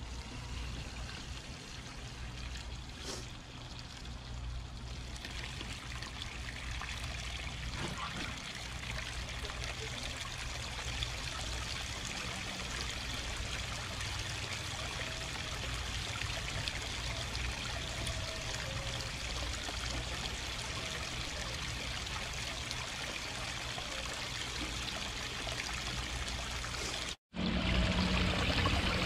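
Water from a pump-fed river-rock waterfall splashing and trickling steadily into a backyard pond. The sound drops out for an instant near the end and comes back louder.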